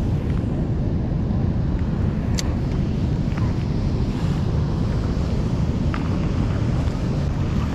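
Steady low rumble of wind buffeting the microphone over fast-flowing river water below a dam, with a couple of faint clicks.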